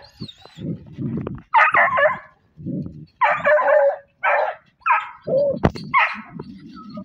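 Hunting dogs barking and yelping at a paca's burrow: about six short, loud barks and yelps, with lower rough growling sounds between them.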